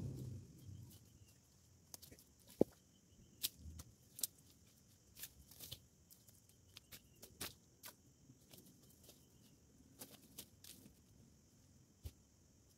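Footsteps and rustling through dry leaves and undergrowth, with irregular sharp cracks and snaps of twigs and debris.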